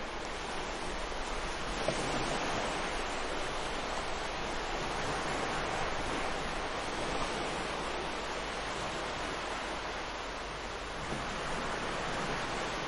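Ocean waves washing in a steady rush of surf that swells and eases gently.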